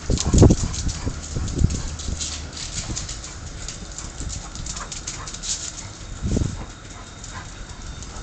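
American Pit Bull Terrier making three short, low vocal sounds: the loudest right at the start, one more about a second and a half in, and another near six seconds in.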